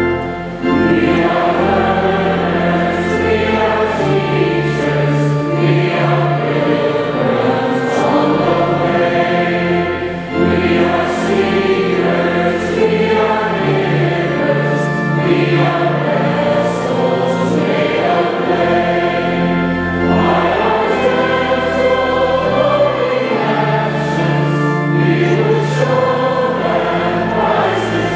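A congregation singing a hymn together, with steady sustained bass notes that change step by step underneath, as from an organ. The singing dips briefly twice, near the start and about ten seconds in, at breaks between phrases.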